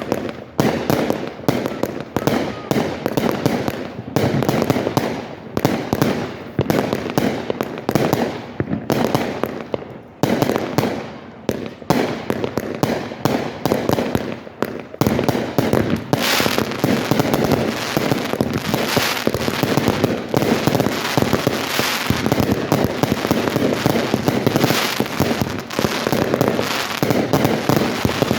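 Fireworks going off in rapid succession, a dense string of cracks and bangs that thickens into a continuous crackle from about halfway through.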